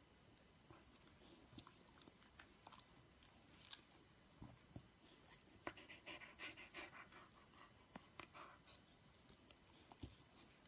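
Near silence with faint scattered clicks and a soft rustle about six seconds in: the quiet mouth smacks and fur sounds of a fluffy white dog being stroked on the head.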